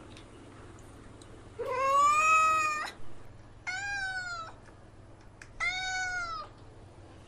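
A kitten meowing three times, about a second apart: high-pitched, drawn-out meows, the first the longest.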